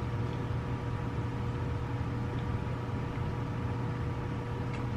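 Steady low mechanical hum with two faint, even whining tones over a soft hiss, unchanging throughout, as from a running motor or fan.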